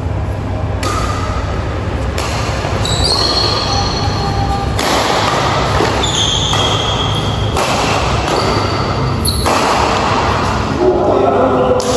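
Doubles badminton rally in a large hall: shuttlecock hits, footfalls and shoe squeaks on the court, echoing, over a steady low hum.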